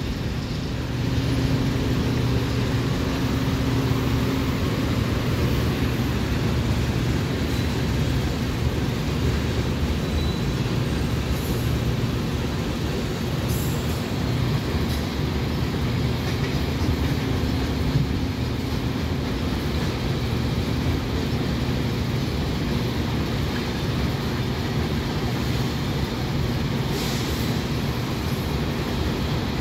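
Freight train of tank cars and covered hoppers rolling past steadily, a continuous noise of wheels on rail.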